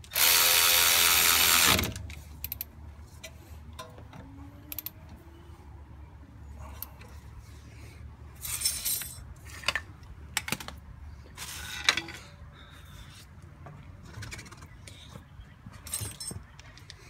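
A Milwaukee cordless power tool runs hard for about a second and a half, driving in a brake caliper bolt. It is followed by scattered clinks and knocks of metal tools and parts being handled.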